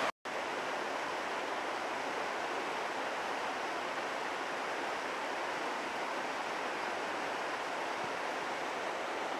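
Fast-running river water rushing over rocks below falls: a steady rushing noise, with a brief dropout right at the start.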